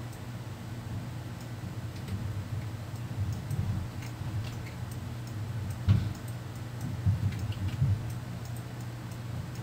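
Scattered light computer mouse clicks over a low steady hum, with a soft bump about six seconds in.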